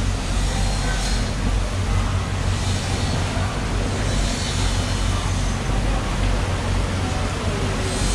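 Steady low rumble with an even hiss of background noise and no distinct events.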